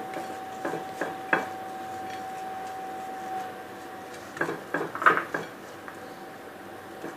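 Dishes and utensils knocking and clinking in scattered light taps, a few near the start and a cluster around five seconds in, over a steady faint hum.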